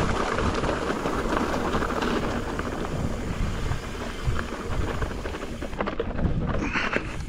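Wind buffeting an action-camera microphone over the crunch and rattle of a Pivot Firebird mountain bike's tyres rolling over a rocky, gravelly trail, with many small knocks from stones and the bike.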